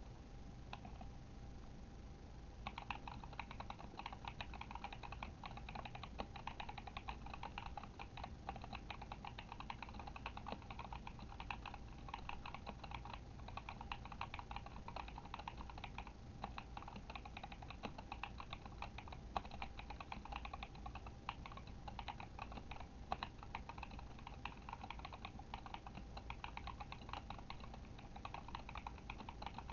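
Typing on a Kemove Shadow mechanical keyboard with Glorious Panda tactile switches: rapid, continuous key clacks. A short lull at the start, then steady fast typing from about two and a half seconds in.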